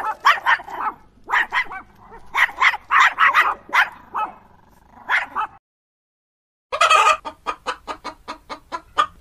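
A dog barking in short runs of barks for the first five seconds or so. After a second of silence, hens start clucking quickly, several clucks a second.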